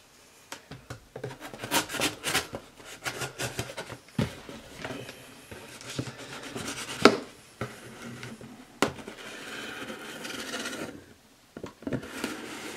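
Folding knife slitting packing tape along the seam of a cardboard box: repeated scraping and rasping of the blade through tape and cardboard, with a few sharp clicks. A longer steady rasp comes before a short pause near the end.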